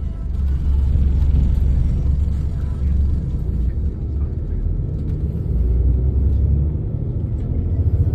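Low, steady rumble of a shuttle bus's engine and running gear, heard from inside the passenger cabin as the bus moves slowly through traffic.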